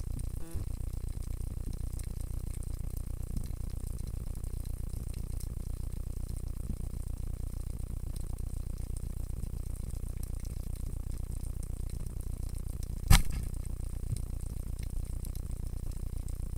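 Steady underwater noise: a low rumble and hiss with faint crackle, picked up by a camera under water. One sharp click about 13 seconds in.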